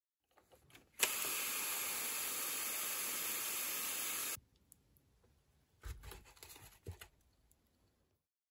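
Hand-pump pressure sprayer misting water: a steady hiss that starts with a click about a second in and stops suddenly about three seconds later. A couple of soft knocks follow near the end.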